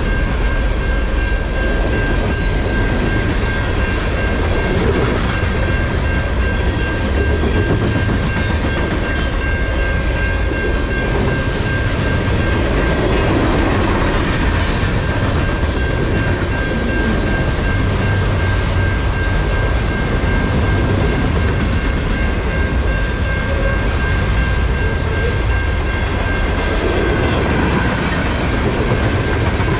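Freight cars of the CN M306 train rolling past at a level crossing: a steady heavy rumble with sharp wheel clacks now and then. A level-crossing bell rings steadily over it.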